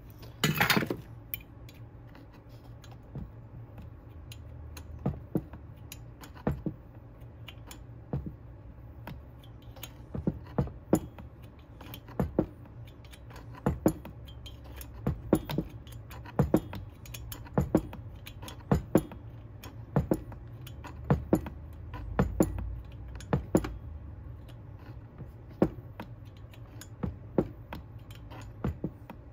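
Light metallic clicks of a hand tool turning a tight screw into the aftermarket Hyway cylinder of a Husqvarna 371 XP chainsaw, one or two clicks about every second, with a louder clatter near the start. The screw is binding in the cylinder's threads.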